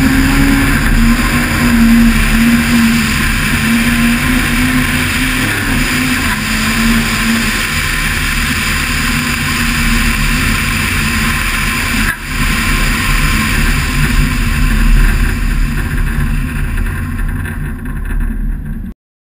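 Toyota Starlet rally car's engine running hard at high revs on a snowy stage, its pitch wavering up and down, over a steady rush of wind and tyre noise. The sound dips briefly about two-thirds of the way through and cuts off suddenly near the end.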